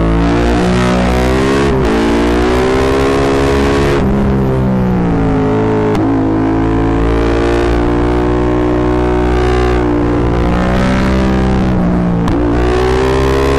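Yamaha MT-07's 689 cc parallel-twin engine breathing through a full Akrapovic exhaust, recorded from the rider's position under way. The exhaust note climbs in pitch under throttle and drops sharply at several gear changes, and it sounds distorted because the microphone is overloaded by the exhaust.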